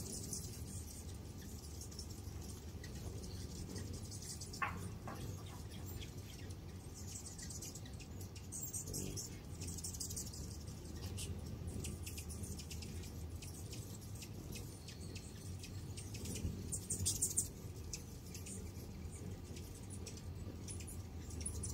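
Many hummingbirds around a row of feeders: a steady low hum of wings, with bursts of rapid, high-pitched twittering chips every few seconds, the loudest burst about seventeen seconds in.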